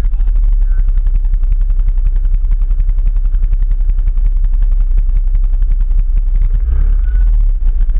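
ATV engine running at low revs, its exhaust firing as a rapid, even popping over a heavy low rumble.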